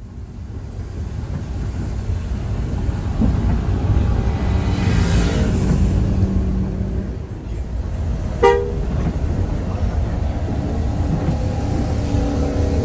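Low engine and road rumble inside a moving intercity bus on a wet road. A single short vehicle horn toot sounds about eight and a half seconds in, the loudest moment.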